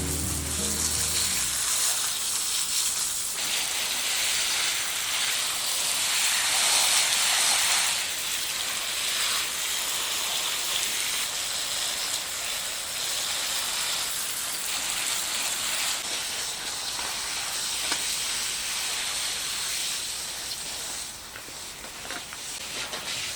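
Water from a circulation pump splashing and trickling steadily into a small rubber-tub garden pond. The level shifts a few times.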